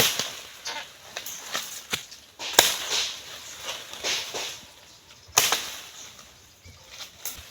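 Chopping strikes during an oil palm fruit harvest: three loud, sharp blows (at the start, about two and a half seconds in and about five seconds in) and smaller knocks, with rustling between them.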